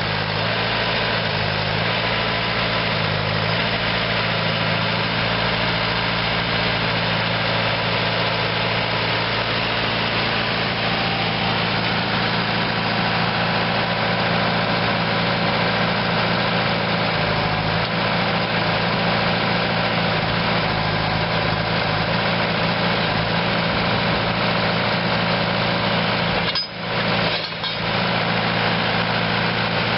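The Vermeer RT650 trencher's Deutz four-cylinder turbo diesel engine running steadily. The sound briefly drops out twice near the end.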